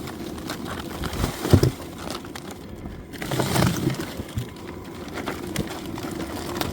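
Steady low hum of a diesel heater running, with a few crunching knocks of handling about one and a half and three and a half seconds in.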